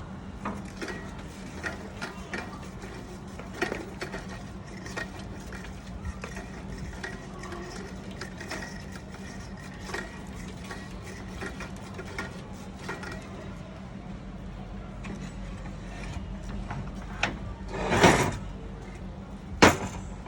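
Scattered small clicks and taps of metal parts being handled during hand work on an old air compressor, over a steady low hum. Two loud sharp knocks come near the end.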